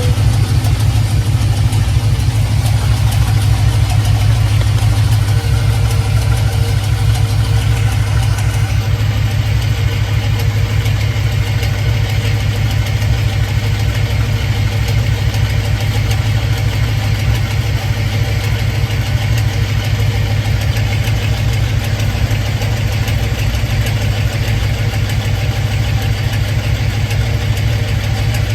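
Swapped GM 5.3-litre LS V8 idling steadily with a rapid even pulse, heard up close near the exhaust. The owner hears a popping, clucking noise in it that he suspects comes from a cracked flywheel or from the torque converter bolts.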